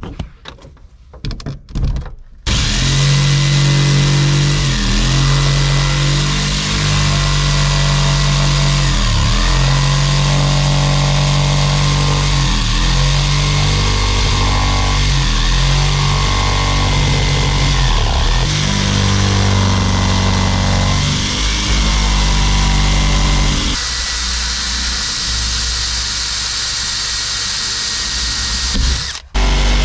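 Cordless jigsaw with a fresh fine metal-cutting blade sawing a slot through a panel. Its motor runs with a steady buzz that dips briefly every couple of seconds. The saw starts a couple of seconds in after a few light knocks and stops abruptly near the end.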